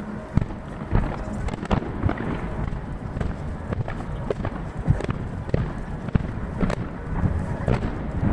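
Aerial fireworks shells bursting one after another, a dense run of sharp bangs and cracks over a continuous rumble, heard from a distance and sped up three times so the bursts come several a second.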